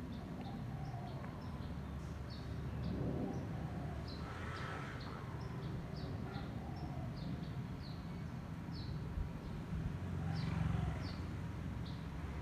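Small birds chirping over and over in short, high, falling notes, about two a second, over the steady low rumble of a distant Airbus A319 jet airliner. Two brief louder, noisy swells come about four and ten seconds in.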